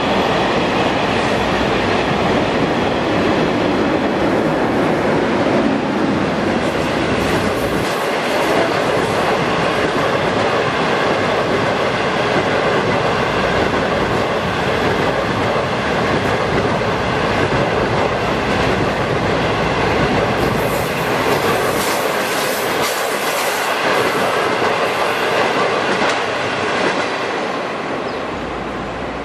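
Chinese 25-series passenger coaches rolling past close by, a loud, steady noise of steel wheels running on the rails, easing off near the end as the last coach goes by.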